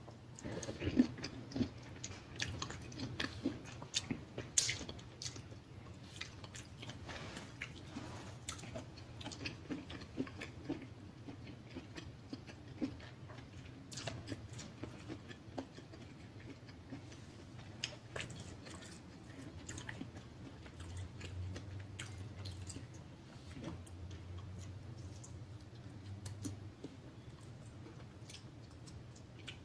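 Close-miked chewing with wet smacking and clicking mouth sounds, thickest in the first half.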